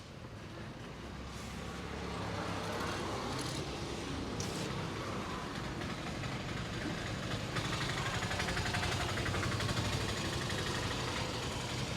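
Street traffic: a motor vehicle's engine running close by, growing louder over the first couple of seconds and then holding steady.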